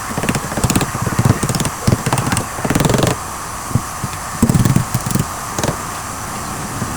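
Irregular knocking, clattering and scraping of hand tools or parts being handled, with a few sharp clicks, over a steady background hum.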